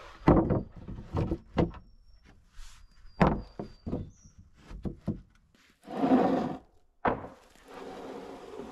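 Rough-cut wooden boards being laid onto a wooden platform frame: a run of wooden knocks, with boards scraping as they are slid into place about six seconds in and again near the end.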